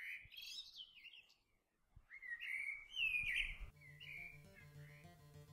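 A songbird calling in three runs of quick chirps and whistled notes that slide up and down, with a pause of about a second between the first and second run. About two-thirds through, plucked-string music comes in beneath the last call.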